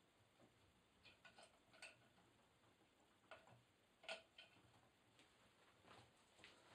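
Faint scattered clicks and light taps from an empty metal cat-food tin being handled and hung on a string as a fresh target, the loudest tap about four seconds in; a few soft footsteps near the end.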